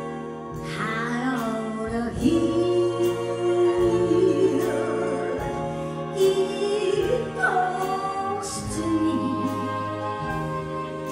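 A female vocalist sings a wavering, held melody over a jazz big band: sustained horn chords and piano, with a cymbal keeping time.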